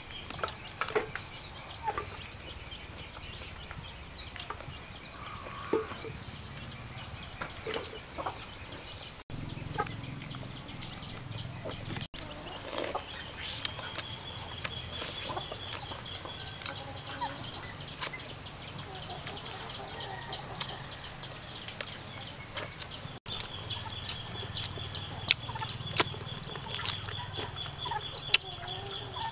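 Chickens clucking, with long runs of rapid, repeated high chirps and a steady high tone.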